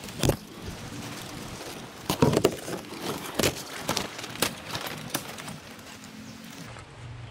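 Footsteps crunching through dry, fallen palm fronds, with irregular crackles and rustling as the fronds are trodden on and pushed aside. The loudest crunches come about two seconds in.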